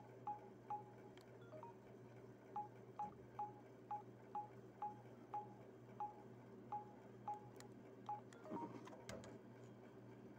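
Samsung GT-C5212i keypad beeping, one short beep per press of the navigation key, over a dozen beeps about half a second apart while scrolling menus. A brief rustle of handling comes near the end.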